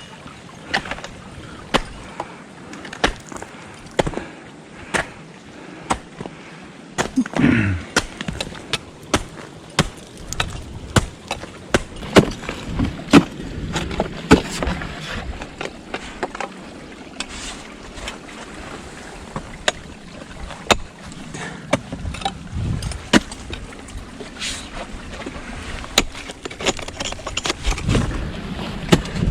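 Footsteps of a climber moving over snow and ice: a run of sharp crunches and knocks, roughly one a second. One louder, low wavering sound comes about seven and a half seconds in.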